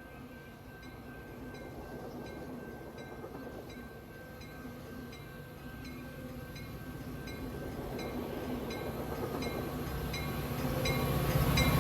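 Passenger train approaching, its low rumble growing steadily louder, with a regular metallic ding about three times a second.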